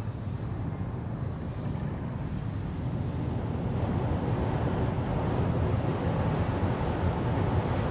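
Aircraft engine drone, steady and slowly growing louder, with a faint, wavering high whine above it.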